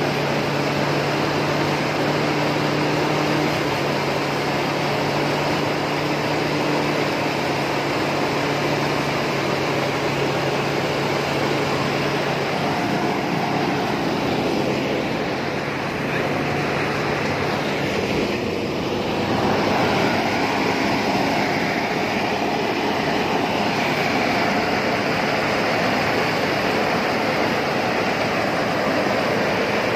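A grain thresher driven by a New Holland 640 tractor, running steadily at work: a loud, even machine noise with no break.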